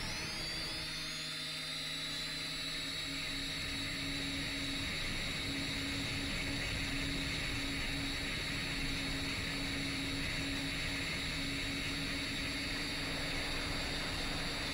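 10-inch FPV drone's brushless motors and propellers running in flight, a steady high whine over a lower hum and rushing noise, the pitch sliding briefly in the first second as the throttle changes, then holding steady.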